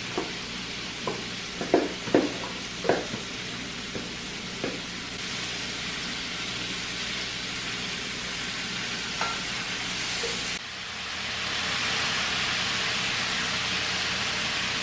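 Chopped vegetables and meat sizzling steadily in a hot cast iron skillet, with several sharp knocks in the first few seconds as a utensil scrapes them out of a bowl and stirs the pan. About ten seconds in the sound breaks off briefly and the sizzle comes back louder.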